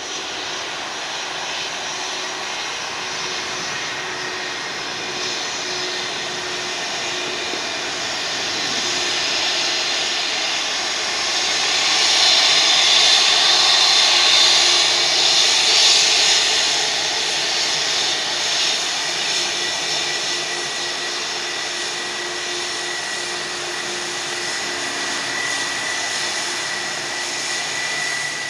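Jet airliner's engines heard as it passes: a continuous roar that swells to its loudest about halfway through, then eases off, with a steady high whine in the later part.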